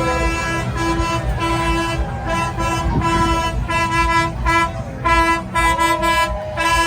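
A boat horn sounding in a run of repeated blasts, some long and some short, over a steady low rumble.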